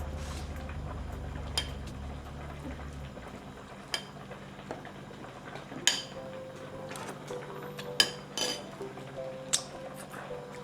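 Metal utensils clinking against a pot and dishes: a handful of sharp separate clinks a second or two apart, over a low rumble that fades out about three seconds in.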